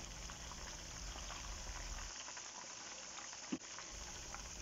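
Salmon pieces sizzling and crackling in hot oil in a frying pan, with a single light knock about three and a half seconds in.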